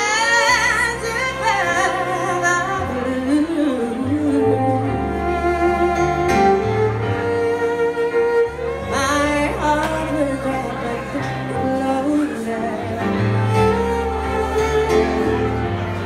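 Violin playing a solo melody with vibrato, over sustained keyboard chords and a bass line.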